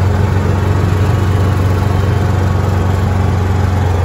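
Kawasaki Mule SX utility vehicle's single-cylinder engine running at a steady speed while the vehicle is driven, a constant low drone with no revving.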